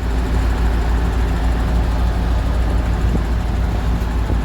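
Heavy truck diesel engine running steadily, a constant low drone with no change in revs.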